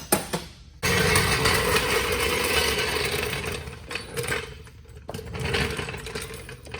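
Car lift's hydraulic pump motor switching on about a second in and running with a steady hum as the car is raised. It dips partway through and picks up again. A few light clicks come just before it starts.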